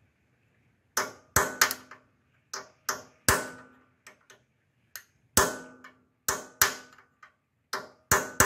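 Hammer striking a steel punch held against the cylinder head of a Briggs and Stratton engine: a series of sharp metallic taps, each with a short ring, starting about a second in and coming irregularly at about two a second. The blows stake the head metal with small dents around a valve guide that had worked loose and pushed out, to hold it tight.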